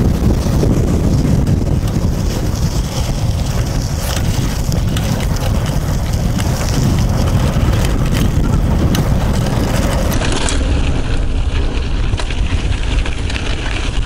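Wind buffeting a chest-mounted action camera's microphone as a Yeti SB75 mountain bike rolls fast downhill on a dirt trail, with the tyres' rumble and occasional knocks and rattles from the bike.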